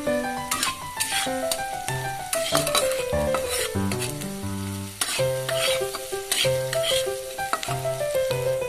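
Onion and chicken mince sizzling in hot oil in a wok, with a spatula stirring and scraping against the pan in repeated strokes. Background music with a melody and bass line plays throughout.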